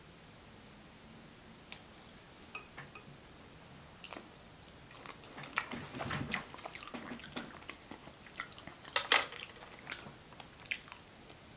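Close-miked eating sounds: soft, wet chewing and mouth clicks from a mouthful of butter chicken and rice, with a few clinks of a utensil on the plate. The clicks come scattered and sparse, busiest in the middle, and the sharpest one comes about nine seconds in.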